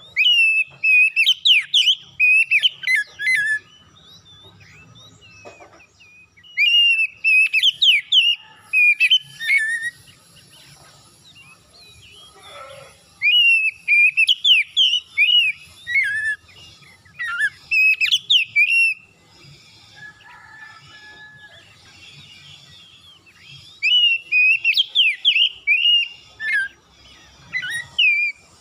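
Oriental magpie-robin singing loudly: rich whistled phrases and rapid trills in four bouts, each a few seconds long, with short pauses between them.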